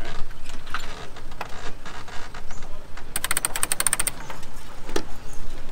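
A rapid run of ratchet-like clicks, about fifteen in a second, about three seconds in, with a few scattered single knocks around it from handling a small sailboat's mast and rigging.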